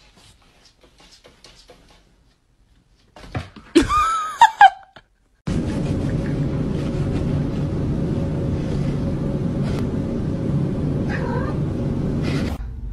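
A domestic cat gives a loud, wavering yowl about four seconds in, after a few faint clicks. From about five and a half seconds a steady noisy hum runs on, with a faint short cry near eleven seconds.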